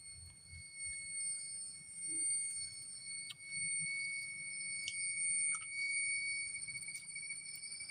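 Forest insects calling without a break, several steady high-pitched chirring tones that swell and fade, with a few faint clicks.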